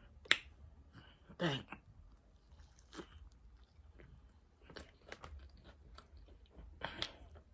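Close-up mouth sounds of a person eating: chewing with small wet clicks and crunches. A sharp click about a third of a second in is the loudest sound.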